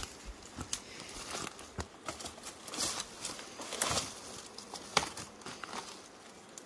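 Leaves and twigs rustling and crackling as someone pushes their hands and body into dense scrub, with clothing brushing against the vegetation, in irregular bursts that are a little louder about three and four seconds in.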